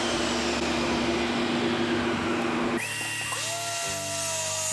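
DeWalt corded circular saw ripping plywood, with a dust-extractor hose drawing at the blade. The cutting noise stops abruptly a little under three seconds in, and music with long held notes carries on.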